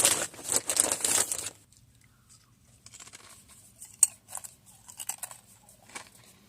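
Loud rustling and crinkling for about a second and a half, then quieter scattered clicks and rustling.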